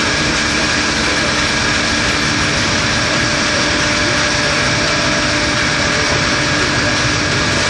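Gear shaping machine running steadily: a constant mechanical whir and hiss with a couple of steady tones and no pauses or sudden events.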